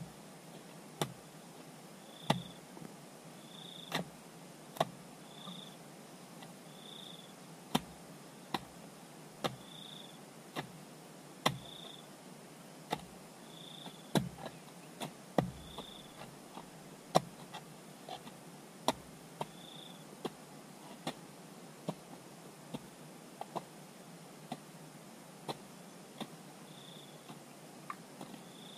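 Irregular sharp knocks, roughly one a second, over a low steady background, with a short high chirp repeating every second or two.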